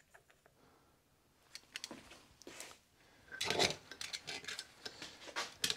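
Small gearbox parts of a Toro eFlex groomer drive being handled: scattered light metal clicks and clinks of gears and shafts, with some rubbing. There is a denser patch of rubbing and clicks about three and a half seconds in, and a sharp click near the end.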